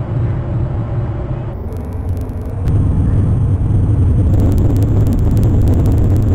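Wind buffeting an outdoor nest-cam microphone: an irregular low rumble that grows louder about three seconds in.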